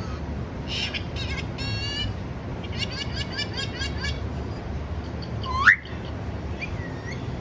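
Pet parrot calling. It gives a few harsh squawks, then a quick run of short chirps, about six a second. About halfway through comes a loud rising whistle, the loudest sound, followed by two softer whistles, over a steady low hum.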